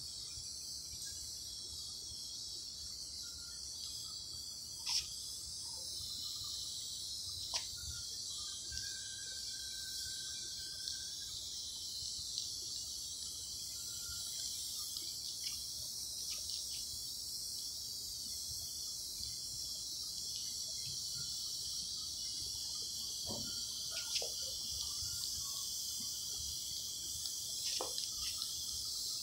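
Steady high-pitched insect chorus, crickets chirring without a break, with a few light clicks scattered through it and a single held whistle-like note lasting about two seconds around nine seconds in.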